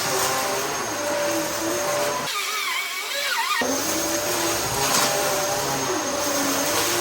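Dyson DC14 upright vacuum cleaner running at full power, its motor tone wavering up and down as the load on it changes. About two seconds in the sound turns abruptly thinner for about a second, then the full running sound returns.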